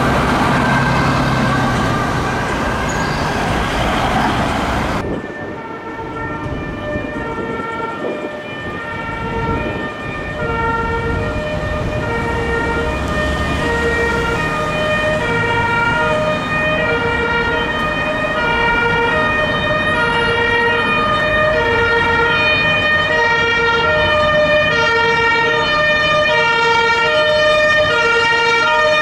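Broad traffic noise as a city bus passes close for the first few seconds. Then a Scania P-series fire engine's two-tone siren, switching between a low and a high note about twice a second, growing louder as the truck approaches.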